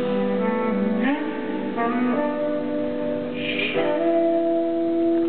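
Live rock band playing, led by a tenor saxophone holding long notes that change pitch every second or two.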